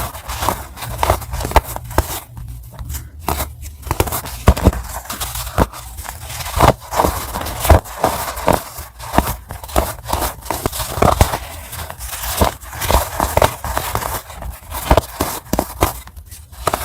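Pressed white baking soda being snapped and crushed: a dense run of sharp crunches and crackles, with a brief quieter stretch about two to four seconds in.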